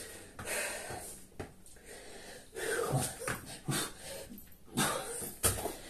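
A man breathing hard and wheezing from the exertion of burpees, a breath every second or so, with a heavy thump on the rubber floor mat near the end.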